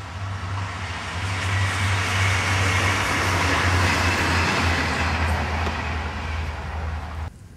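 SNCF X 72500 TER diesel railcar passing by: a steady low engine drone with rolling noise that swells to its loudest in the middle and then fades away. The sound cuts off abruptly near the end.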